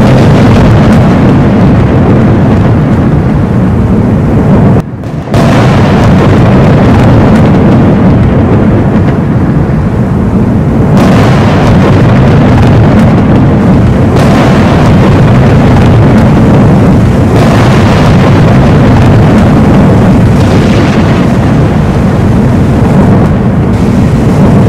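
Thunderstorm thunder, very loud and nearly unbroken, dipping briefly about five seconds in.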